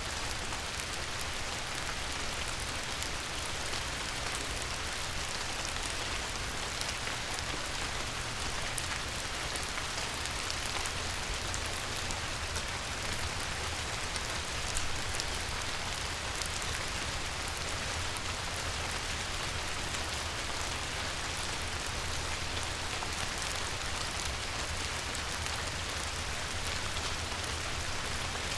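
Light rain falling on a river's surface: a steady, even hiss of many small drops, with a low steady rumble underneath.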